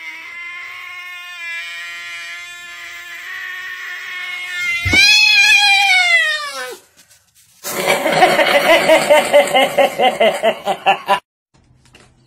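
A domestic cat yowling: a long, drawn-out caterwaul for about four seconds, then a thud and a louder yowl that falls in pitch. After a short silence comes a harsh, rapidly pulsing sound that lasts about three seconds and cuts off suddenly.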